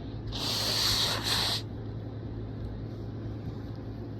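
A person forcing a hard rush of air through the nose: one hissing blow just over a second long with a brief catch near its end, over a steady low hum.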